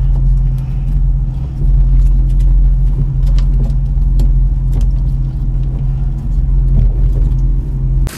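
An engine running steadily, a loud low hum at an even pitch with a few faint clicks, cutting off suddenly near the end.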